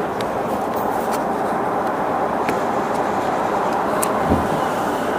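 Steady interior noise of a Sotetsu 11000 series electric train car around a station departure, with a few faint clicks and a single low thump about four seconds in.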